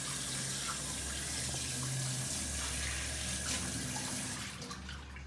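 Kitchen tap running steadily into the sink, starting abruptly and easing a little near the end.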